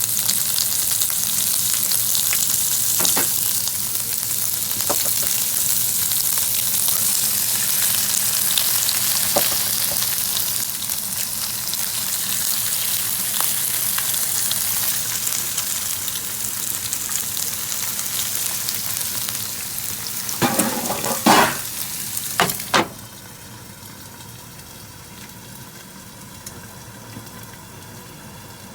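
Food sizzling and spattering in a hot frying pan with small scattered crackles. About twenty seconds in come several loud knocks, and soon after the sizzle drops off suddenly to a much quieter hiss.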